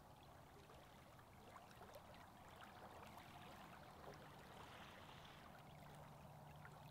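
Near silence: faint lapping of lake water, with a faint low steady hum from about four seconds in.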